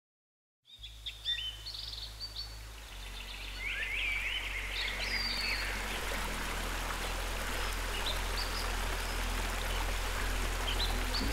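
Birds chirping and calling over the steady rush of a shallow, rocky stream, the water growing louder a few seconds in. A low sustained note sits underneath and shifts in pitch a few times.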